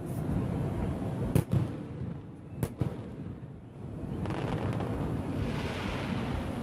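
Fireworks going off: a low rumble of bursts throughout, with two sharp bangs, the louder about a second and a half in and another near three seconds. From about four seconds in a steady hiss sets in.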